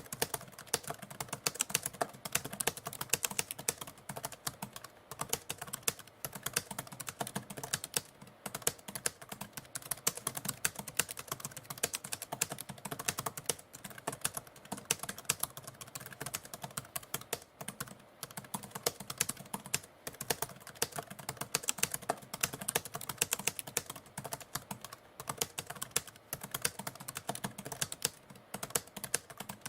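Manual typewriter being typed on continuously: a rapid, unbroken run of key strikes.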